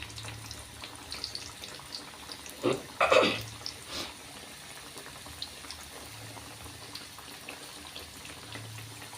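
Mandazi dough frying in hot oil over low heat: a soft, steady sizzle with scattered light crackles. A brief clatter about three seconds in.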